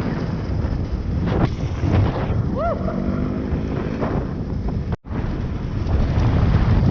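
Wind rushing over the camera microphone and dirt-bike tyres rolling and rattling over dirt as the bike coasts downhill with its engine switched off. The sound cuts out for a moment about five seconds in.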